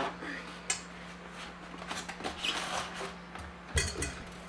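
Polystyrene foam packing block being pulled off a stand mixer: foam scraping and rubbing, a few sharp clicks, and a heavier knock near the end.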